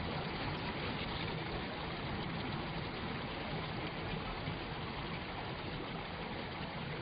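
A steady, even rushing noise, like running water, with no pitch and no distinct strikes.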